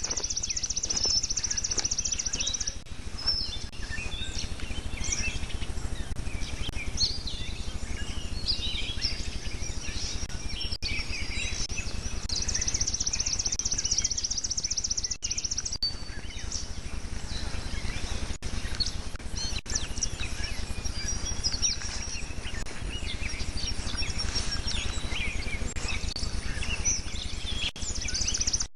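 Many songbirds singing outdoors: short chirps and whistles throughout, and a high, rapid trill lasting about two seconds that ends about a second in, comes again about halfway through, and starts again at the very end. A steady low hum runs underneath.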